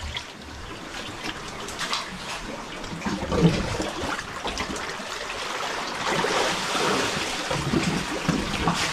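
Water splashing and trickling, a steady wash that grows a little louder partway through.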